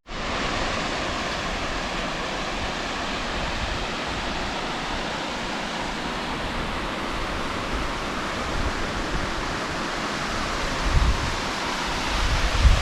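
Steady, even rushing of running water, like a mountain stream or cascade. Near the end there are a couple of low rumbles of wind buffeting the microphone.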